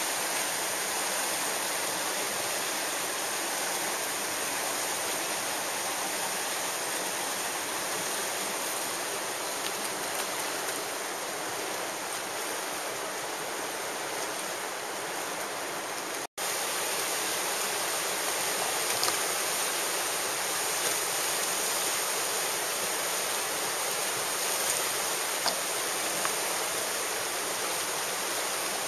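Whitewater rapids rushing steadily on a slalom course, with a momentary dropout about halfway through.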